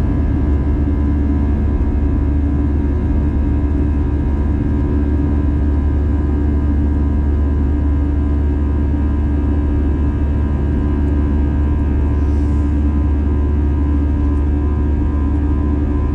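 Airbus A320 cabin during climb-out after takeoff: the jet engines and airflow make a steady deep rumble, with steady humming tones over it.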